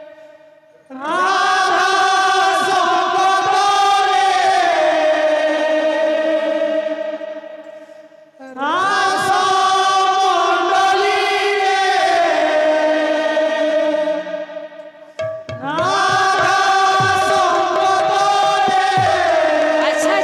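Kirtan singers chanting in chorus: three long sung phrases, each rising into sustained held notes, with short breaks between them. A few low khol drum strokes come in during the last phrase.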